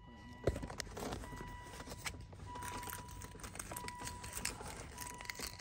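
Quiet handling noise: rustling and small taps as a hand-held scan tool is held and moved, with one sharp click about half a second in. A faint high steady tone breaks on and off underneath.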